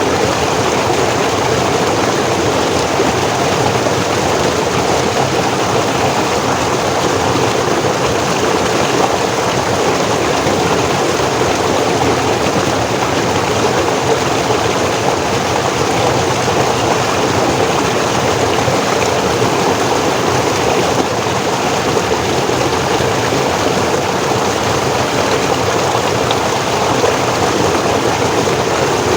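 Forest stream flowing over rocks, a steady rushing and splashing of water at an even level.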